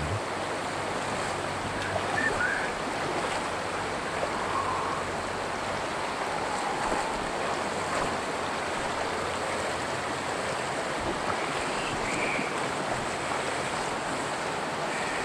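Shallow mountain river rushing over a gravel bed, a steady even rush of water.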